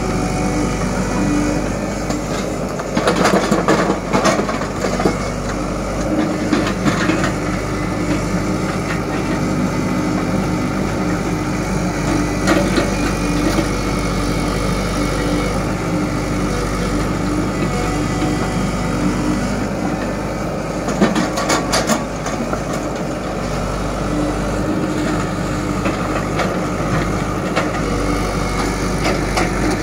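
Diesel engines running steadily: a Tata Hitachi mini excavator working beside an idling Eicher tractor. Bursts of clattering come about three seconds in and again around twenty-one seconds, as soil and stones are loaded into the tractor trolley.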